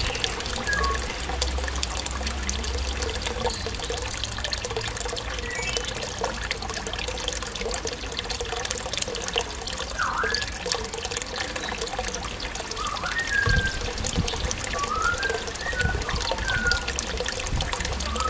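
Steady trickling water, with a grey parrot whistling short rising and falling notes in the background from about halfway through.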